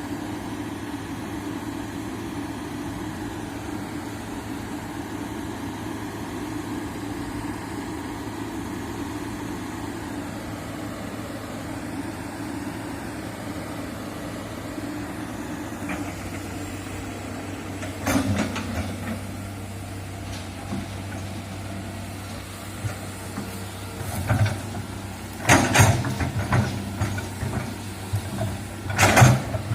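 Excavator engine running steadily, then a series of sharp knocks and clanks from the machine and its bucket working, the loudest near the end.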